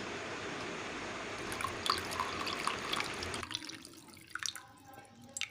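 Hot kadha (herbal decoction) poured from the pot through a strainer into a cup: a steady pour for about three and a half seconds, then it tails off into a few drips and light taps.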